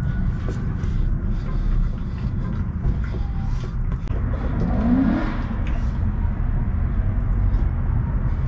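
Car engines running with a steady low rumble; one engine revs up, rising in pitch, about five seconds in.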